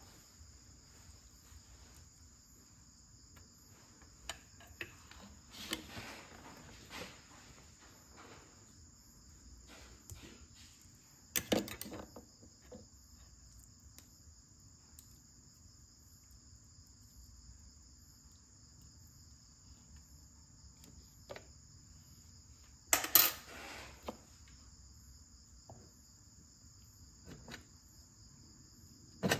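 A steady insect chorus chirring in the background, with scattered light clinks of kitchen utensils and dishes and two louder clatters, about eleven seconds in and again near twenty-three seconds.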